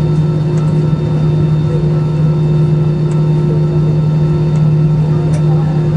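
Cabin noise inside a taxiing Airbus A320-214: its CFM56 jet engines running at taxi power give a loud, steady drone with a constant hum.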